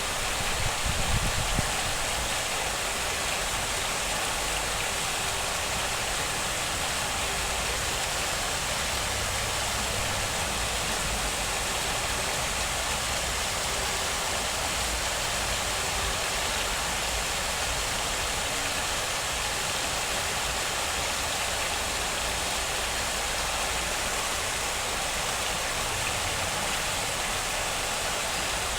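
Steady rushing of running water, like a stream or waterfall, unchanging throughout, with a brief low rumble about a second in.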